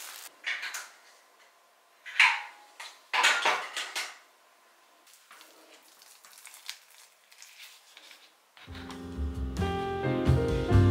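Plastic spatula scraping and scooping thick pre-mixed wall putty in a plastic tub: a few short scrapes in the first four seconds, fainter ones after. Background music comes in near the end.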